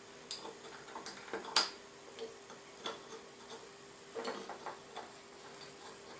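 Light, scattered clicks and taps of barrel nuts being seated into their holes in the wooden jaws of a handscrew clamp, the sharpest about a second and a half in.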